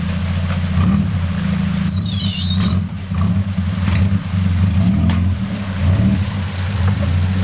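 Suzuki Samurai's swapped 1.6 16-valve four-cylinder running under load, its exhaust drone rising and falling with the throttle, during a trail climb. A brief high squeal comes about two seconds in.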